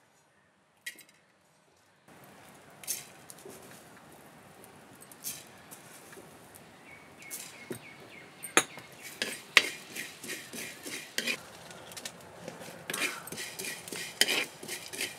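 A spoon scraping and stirring coriander seeds being dry-roasted in a clay pan over a wood fire, with irregular clinks and rattles over a low steady hiss. It starts about two seconds in, and the scrapes come thicker in the second half.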